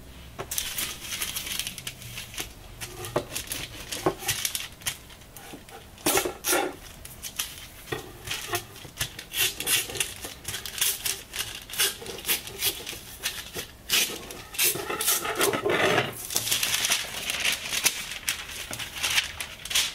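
Parchment (baking) paper being slit along its diagonal fold with a kitchen knife and then handled as the two halves are pulled apart: irregular crisp scraping and crinkling, thickest near the end.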